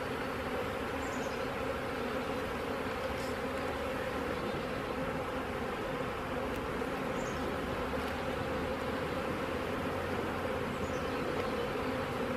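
A swarm of honey bees buzzing in a steady, dense drone around an open hive being stocked from a nuc.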